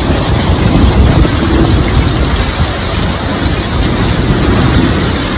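Tornado wind and heavy rain, a loud, steady rush of noise.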